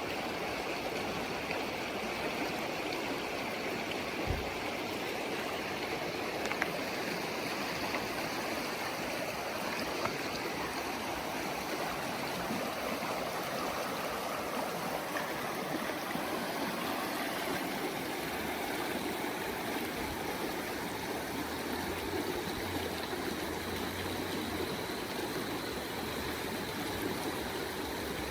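A mountain river rushing and gurgling over rocks in a steady, even flow, with a few faint low bumps.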